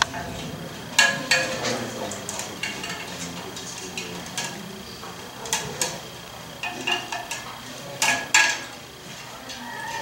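Scattered sharp clicks and light metallic clinks as an end plate is handled and fitted against a generator core's threaded rods while wire leads are pushed through its holes. The loudest comes about a second in, with a close pair near the end.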